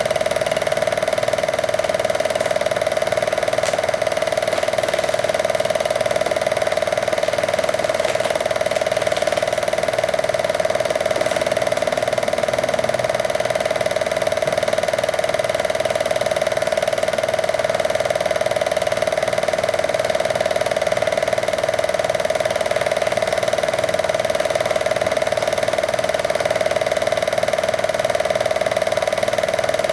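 8mm movie projector running: a steady whir with the rapid, even clatter of its film-advance mechanism.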